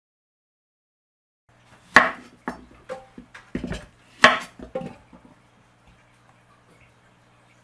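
Chef's knife chopping through a yellow squash onto a wooden cutting board: two loud chops about two seconds apart, with lighter knocks of the blade and the squash on the board between them, over a low steady hum. The sound starts after about a second and a half of silence.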